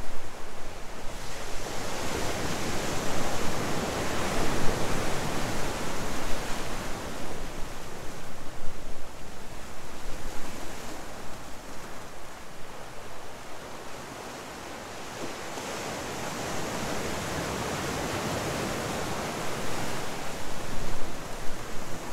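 Ocean surf breaking and washing over a rocky shore, swelling and easing in waves, with a quieter lull about halfway through.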